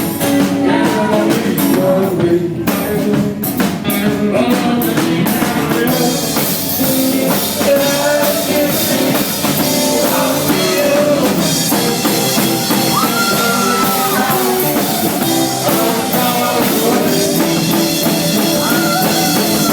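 Live rock band playing loudly: drum kit, electric guitar and a singing voice.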